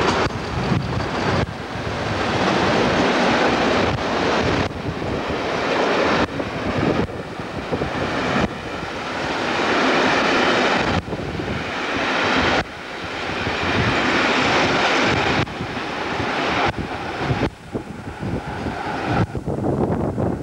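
Heavy wind buffeting on the camcorder microphone, coming in gusts that start and stop abruptly. Beneath it is the steady running noise of a Class 50 diesel locomotive hauling coaches past and away.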